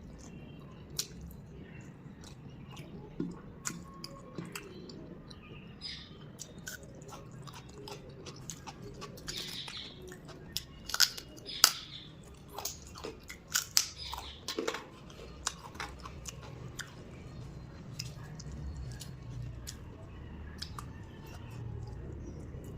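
A person chewing food close to the microphone, with sharp crunching bites that come thickest and loudest in the middle, then softer chewing.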